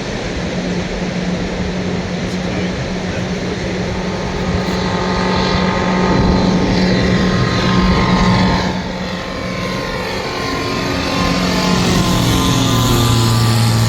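Propeller-driven light aircraft engine passing close by. The drone grows louder for the first half, then its pitch drops over a few seconds as it goes past and settles at a lower note.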